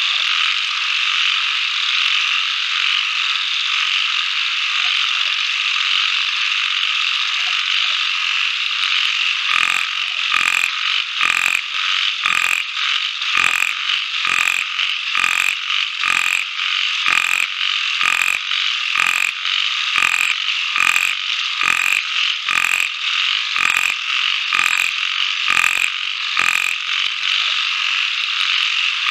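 Outdoor animal chorus: a steady high-pitched droning chorus. About ten seconds in, a loud pulsed call joins it and repeats about once a second.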